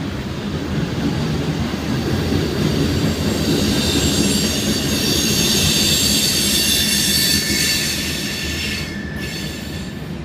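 Freight train cars rolling past, their wheels rumbling on the rails with a high, steady squeal of wheels on rail. The squeal stops about nine seconds in and the rumble fades as the end of the train goes by.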